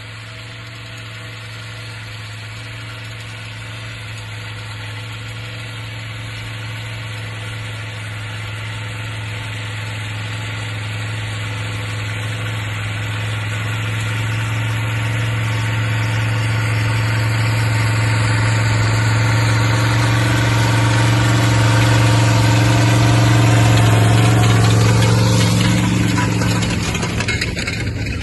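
Linn tractor half-track's engine running steadily as it approaches, getting louder for about twenty seconds. It then passes close by with a drop in pitch and fades near the end.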